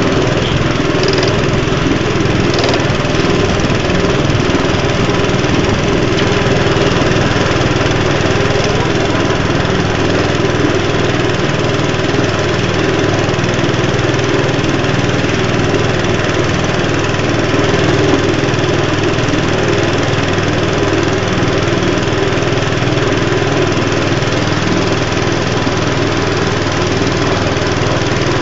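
Small boat's engine running steadily at an even speed, loud and unchanging.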